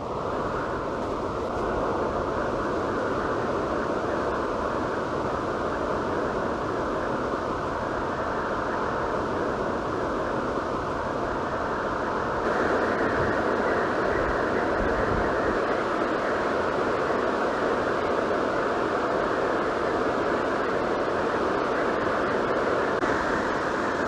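Steady roar of a tall waterfall's falling water, a continuous rushing noise that grows a little louder and brighter about halfway through.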